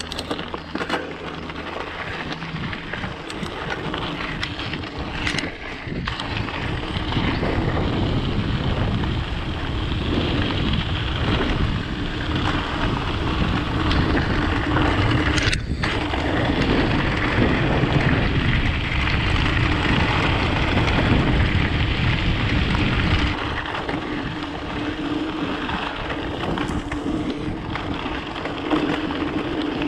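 Mountain bike rolling over a stony dirt trail: a continuous rush of tyre and frame noise with wind on the microphone. It grows louder over the first several seconds and eases a little about three-quarters through.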